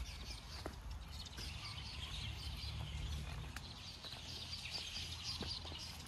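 Footsteps on a wet dirt forest path, with faint bird chirps in the background and a steady low rumble on the microphone.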